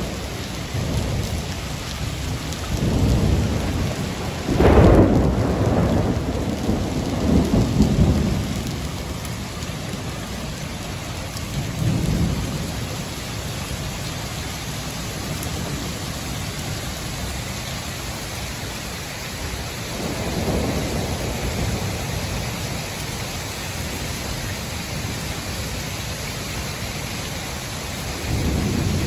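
Heavy rain pouring onto pavement as a steady hiss, with thunder rumbling through it several times. The loudest is a sharp crack about five seconds in that rolls on for a few seconds; lighter rumbles follow around twelve and twenty seconds in, and another near the end.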